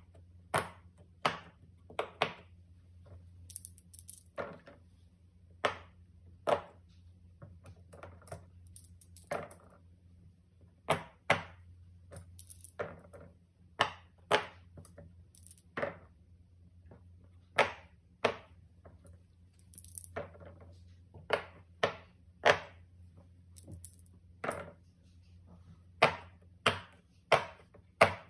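Silicone pop-it fidget toy bubbles being pressed in by hand, making an irregular string of sharp pops, about one or two a second, over a faint steady low hum.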